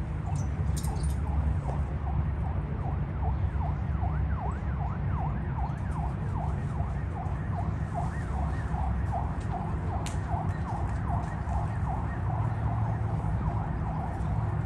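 An emergency-vehicle siren in its fast yelp mode, rising and falling about three times a second, over a steady low rumble.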